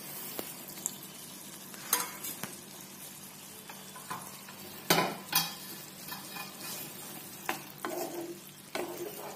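Spatula stirring fried okra into a simmering masala gravy in a frying pan, over a steady low sizzle. A few sharp scrapes and taps of the spatula against the pan, the loudest about five seconds in.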